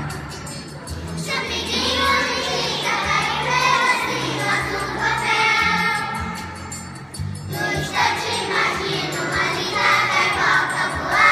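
A group of young children singing together with musical accompaniment.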